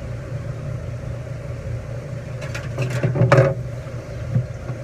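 A steady low mechanical hum, with a short burst of sharp clattering clicks about two and a half to three and a half seconds in and a single soft knock near the end.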